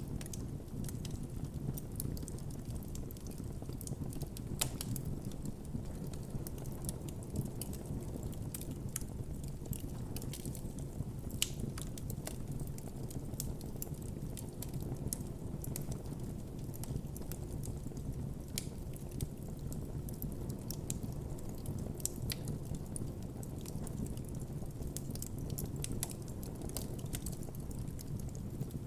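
Wood campfire burning with a steady low rumble of flame and frequent sharp crackles and pops from the burning wood.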